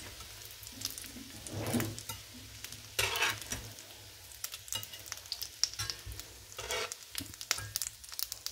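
Shallow oil sizzling faintly in a frying pan as fried macaroni-and-chicken triangles are lifted out with a slotted metal turner. Many small taps and scrapes of the turner against the pan, with a few louder scrapes.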